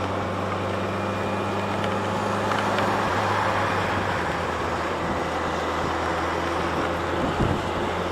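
2007 Yamaha FJR1300A's inline-four engine running steadily at cruising speed, under a steady hiss of heavy rain, road spray and wind.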